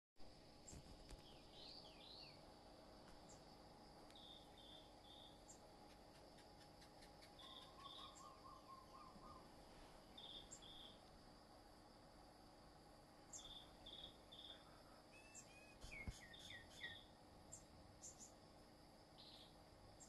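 Faint forest dawn soundscape: songbirds calling in short chirps in twos and threes over a steady high insect drone, with a quick trill about 8 seconds in and a run of falling chirps around 16 seconds.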